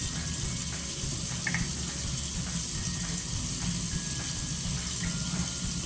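Kitchen tap running steadily, a constant rush of water.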